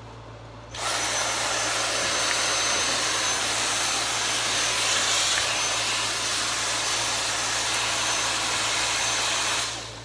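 Cordless stick vacuum cleaner switched on about a second in, running steadily with a high-pitched whine, then switched off just before the end.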